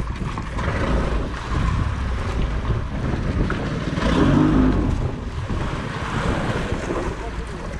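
Wind buffeting the microphone over the steady wash of sea waves against a small outrigger fishing boat.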